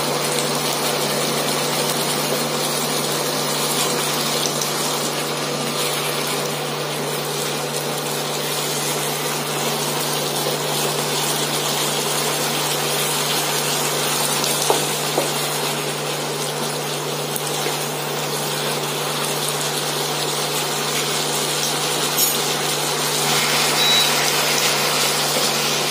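Steady machine hum and hiss from an induction cooktop running under a pan of cooking drumstick pieces, with a few light knocks of a wooden spatula against the pan.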